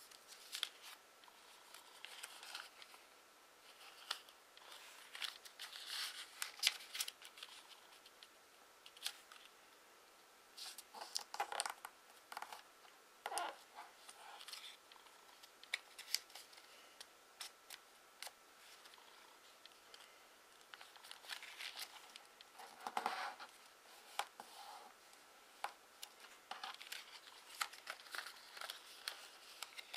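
A sheet of 15 cm origami paper being folded, creased and unfolded by hand: faint, uneven rustling and crinkling with crisp little clicks as folds are pressed flat. The loudest rustle comes about three quarters of the way through.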